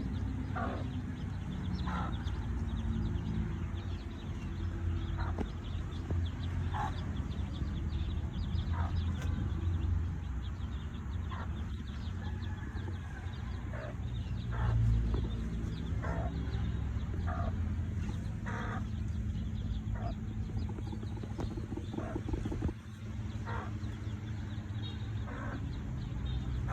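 Chickens clucking, short calls every second or two, over a steady low rumble.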